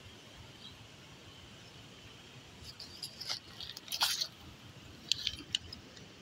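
Riverside ambience: a faint steady insect drone, broken by two flurries of short, sharp, high chirps, one about three to four seconds in and another about five seconds in.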